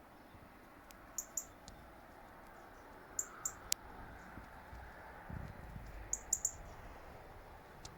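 Small birds calling: short high chirps in twos and threes, about a second in, around three seconds in and again after six seconds, with a few sharp ticks between, over a faint steady hiss. A low rumble comes in for about a second past the middle.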